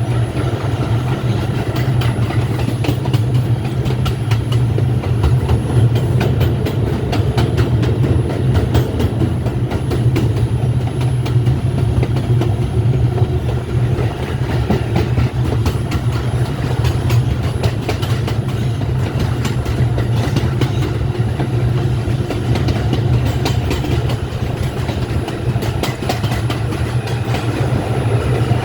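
R142 subway train running steadily, heard from on board: a loud, even low rumble of wheels on rail with continual clicking and clatter from the track.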